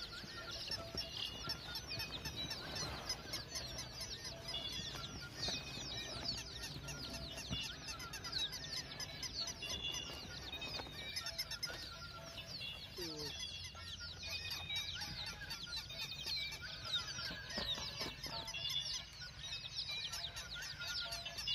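Flock of chickens clucking amid dense, quick, high chirping.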